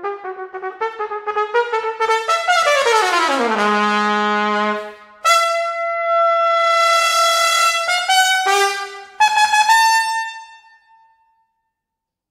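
Unaccompanied trumpet playing quick tongued notes, then sweeping down to a low held note. It follows with a long high held note and a final high note that fades away a second or so before the end.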